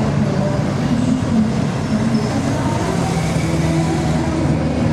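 Busy outdoor street ambience: crowd chatter mixed with road traffic noise.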